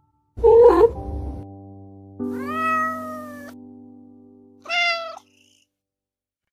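A cat meows three times, the middle meow rising in pitch and then held, over a few sustained music notes that slowly fade.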